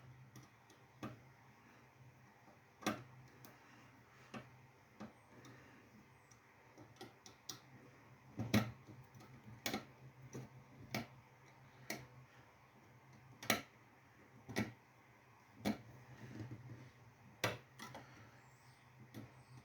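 A small screwdriver working the wiring terminals of a fire alarm horn strobe: scattered light clicks and taps at uneven spacing, roughly one a second, over a faint low steady hum.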